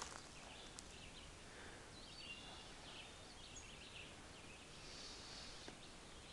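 Quiet woodland ambience: faint, steady background hiss with a few short, distant bird chirps.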